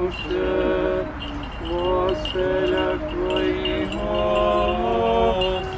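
Several voices singing a slow liturgical chant a cappella at a graveside memorial service, each note held for about half a second to a second before moving on.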